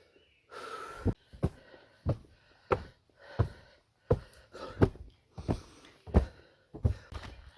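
Footsteps climbing stairs: heavy, evenly paced footfalls, about three every two seconds, starting about a second in.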